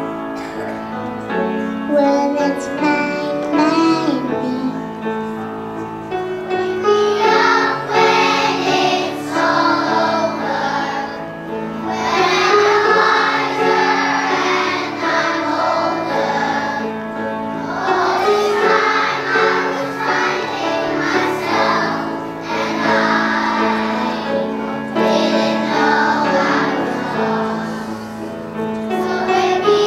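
A group of children singing a song together over musical accompaniment, the singing growing fuller about seven seconds in.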